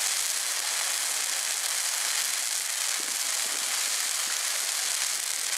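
Christmas tree burning in full flame, a steady hiss and crackle of the fire.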